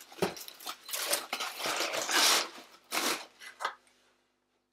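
Crinkly paper packing rustling and crunching in irregular bursts as a beer bottle is pulled out of its soft cardboard-mesh wrap, stopping about four seconds in.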